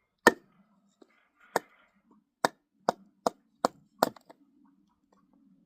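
Hammer strikes: seven sharp, separate blows, the first few spaced out and the last four quicker and evenly spaced, about two and a half a second.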